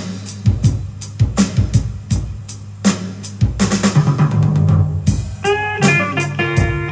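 Music played back through a pair of Victor (JVC) SP-MXX1 three-way speakers: a steady drum-kit beat of kick and snare over a bass line. Guitar notes come in about five seconds in.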